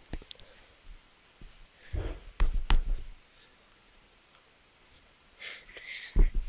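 Handling noise: knocks and bumps as a phone is handled, with a single click at the start, a cluster of loud thumps about two to three seconds in, and another loud thump near the end.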